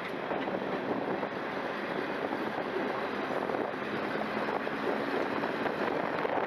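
Class 121 diesel railcar running steadily along the line, heard from an open window: an even rush of wheel and engine noise.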